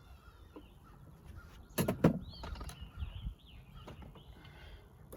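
Two sharp knocks a little under two seconds in, followed by faint bird chirps.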